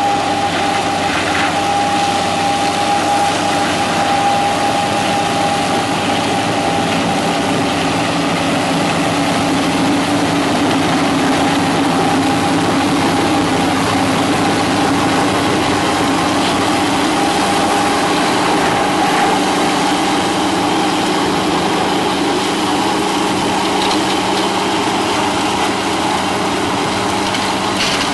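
Tractor engine running steadily under load while driving a side-arm flail mower cutting ditch-bank vegetation, with a steady high whine over the engine.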